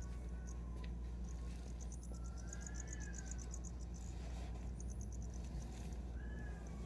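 Cricket chirping in short trains of rapid, high-pitched pulses that come and go every second or two. Over a steady low hum, a few soft gliding whistle-like calls are also heard.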